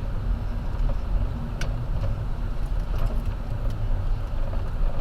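Car driving: a steady low rumble with a few light clicks and rattles, the sharpest about a second and a half in.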